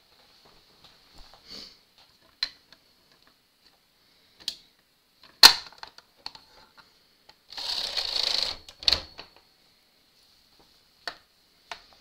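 Scattered clicks and clacks from a Brother 930 knitting machine's needle bed, with one loud click about five seconds in and a rustling scrape lasting about a second near eight seconds, as the freshly seamed knitting is worked off the needles.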